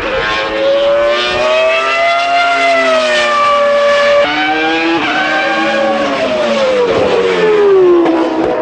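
Williams FW19's 3.0-litre Renault V10 Formula 1 engine running at high revs. Its pitch climbs and holds, changes abruptly about four seconds in at a gear change, then falls steadily through the last few seconds as the revs come down.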